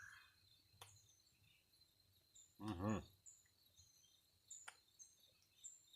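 Near-quiet woods with faint, scattered high bird chirps; about halfway through, a man gives a short voiced "mmm" while eating, and there are a couple of light clicks.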